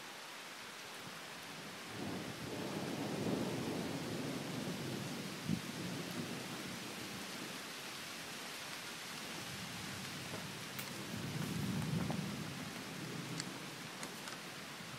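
Thunder rumbling twice over a steady hiss of rain: one long roll builds about two seconds in and fades away, and a second swells near the end.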